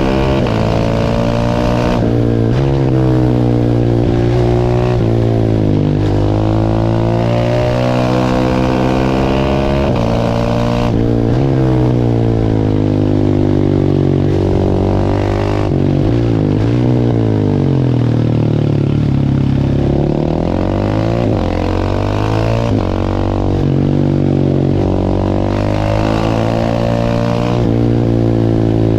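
A 690cc single-cylinder supermoto engine being ridden hard, its pitch rising and falling again and again as it accelerates and slows. There are short breaks every few seconds and a deep drop in pitch around the middle before it climbs again.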